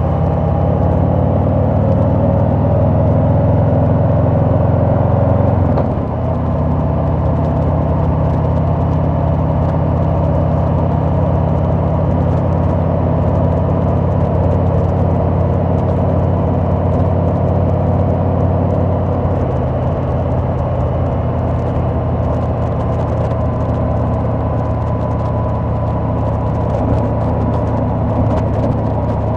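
Harley-Davidson Sport Glide's V-twin engine running under way, its note rising over the first few seconds. A brief dip in level comes about six seconds in, then it runs steadily at cruising speed with wind and road noise.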